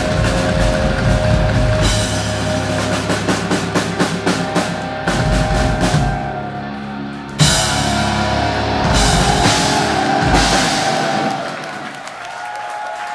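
Live hard-rock band of drums, electric guitars and bass playing the close of a song. Fast drum hits drive the first few seconds, a sharp full-band hit lands about seven seconds in, and chords and cymbals then ring on and die away near the end.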